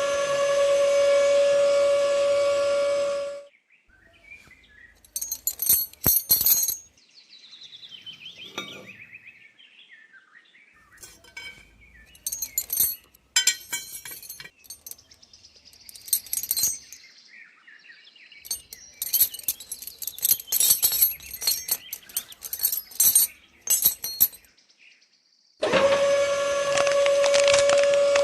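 A mini tractor's small motor runs with a steady whine and cuts off after about three and a half seconds. A long stretch of scattered clicks and clinks from small parts being handled follows. The motor whine starts again near the end.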